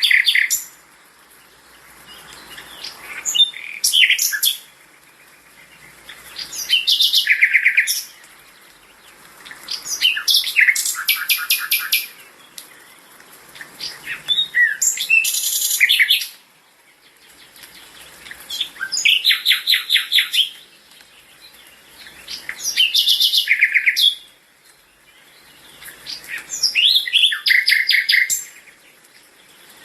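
A songbird singing, repeating a phrase of about two seconds built from rapid trilled notes roughly every four seconds, with short pauses between phrases.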